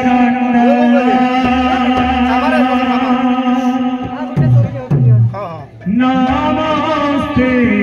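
A male kirtan lead singer chants a devotional line into a handheld microphone, holding one long steady note. About four seconds in he breaks into a few lower, moving notes, dips briefly, then takes up a new held note.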